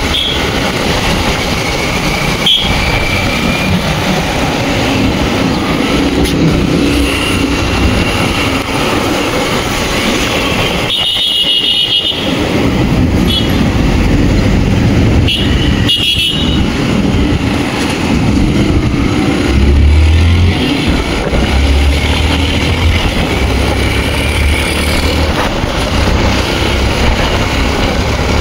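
Steady road-travel noise of a moving vehicle, with short high horn toots about eleven and sixteen seconds in. A low rumble grows louder in the second half.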